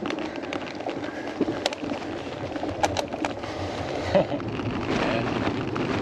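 Wind rushing over the microphone with the rolling noise of a touring bicycle under way, and a few sharp clicks and a knock in the middle.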